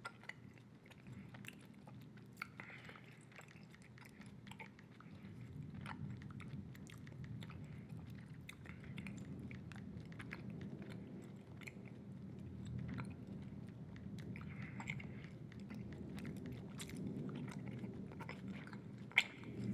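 Close-miked chewing of a big wad of bubble gum: wet, sticky mouth sounds with many small sharp clicks and smacks scattered irregularly throughout.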